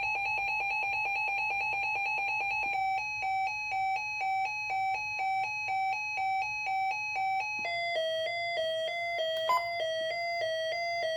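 Weather alert radio siren beeping: a fast series of electronic beeps, then from about 3 seconds in slower beeps about twice a second, which drop to a lower pitch near 8 seconds in.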